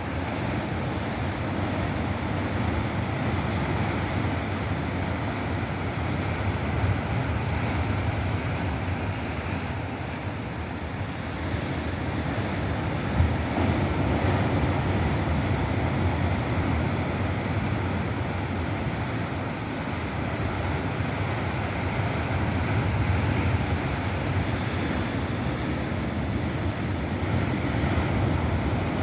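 Ocean surf crashing and washing ashore: a continuous rushing noise, heaviest in the low range, that slowly swells and eases.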